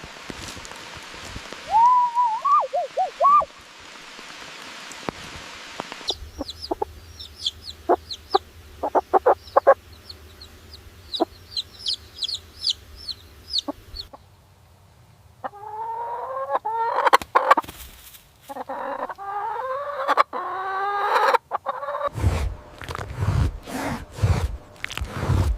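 Chickens calling in a series of short clips: a brief wavering call, then quick high chirps, then a run of rising, repeated clucking calls. Low thumps come near the end.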